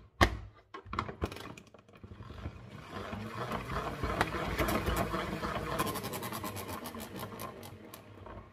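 Plastic push-down salad spinner spinning water off washed, shredded puntarelle: a few clicks as the lid is seated, then a whirring rattle that builds up and slowly dies away, with a quick run of ticking as the basket coasts down.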